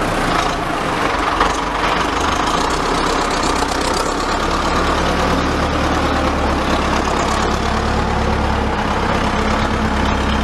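Farm tractor's engine running steadily as the tractor pushes soil with a front dozer blade.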